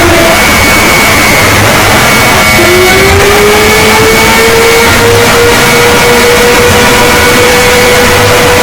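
Emergency alarm siren tone, boosted until it is heavily distorted and extremely loud, over a harsh noise. The siren pitch glides down and breaks off just after the start, then rises again from about two and a half seconds in and holds steady, with a second, higher steady tone above it.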